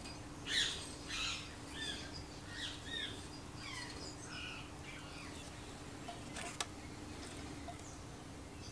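Birds chirping in short, quick calls for the first four seconds or so, with a single sharp click of metal engine parts being handled about six and a half seconds in. A faint steady hum runs underneath.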